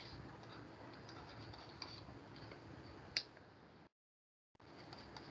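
Faint background noise with light ticks of a stylus writing on a tablet, one sharper click about three seconds in. Shortly before four seconds the sound cuts out completely for under a second, then returns.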